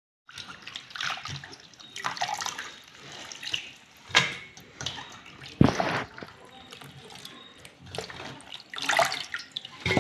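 Roselle leaves and okra being washed by hand in a steel pot of water: irregular sloshing and splashing, with two louder bursts about halfway through.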